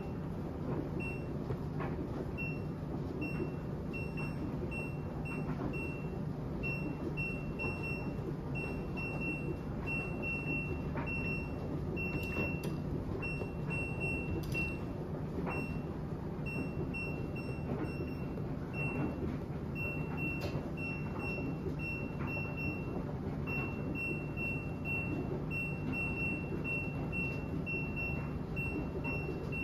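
An LG front-load washing machine's control panel beeping as its buttons are pressed rapidly one after another, each press giving a short high beep, a few a second, sometimes running together into longer tones. A steady low rumble lies underneath.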